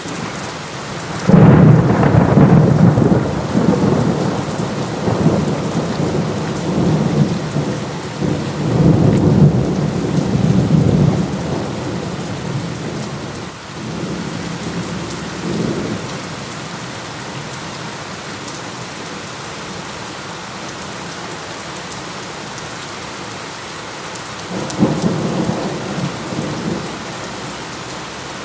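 Heavy, steady rain with thunder. A sudden loud thunderclap about a second in rolls on, rising and falling, for some ten seconds. A fainter rumble follows, and another thunder rumble comes near the end.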